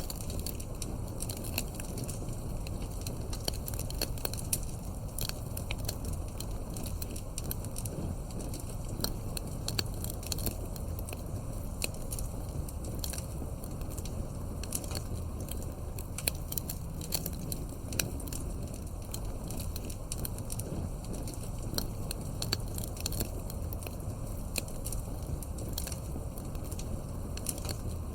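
Wood fire crackling, with frequent irregular sharp pops and snaps over a steady low rumble of burning logs.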